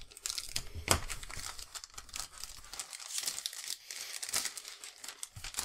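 A thin clear plastic bag holding a plastic model-kit sprue crinkling as hands handle it, in irregular crackles with a sharper one about a second in.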